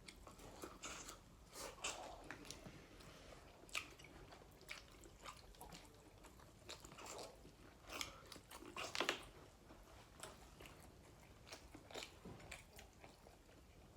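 Close-miked eating sounds: chewing and biting, with soft crunches and wet mouth clicks scattered irregularly, a louder cluster about nine seconds in.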